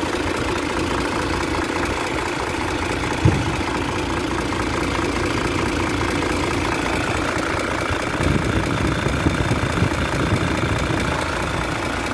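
Isuzu Forward truck's 6HL1 inline-six diesel idling steadily with its oil filler cap off for a blow-by check; no oil spits out of the filler. A single sharp thump about three seconds in, and a few low bumps a little past the middle.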